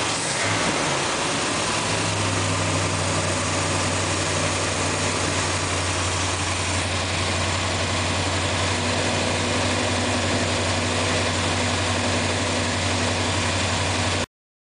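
1963 Corvette's 327 small-block V8 with a four-barrel carburetor, settling in the first two seconds from a touch of throttle into a steady idle with a slight cam lope. The sound cuts off suddenly near the end.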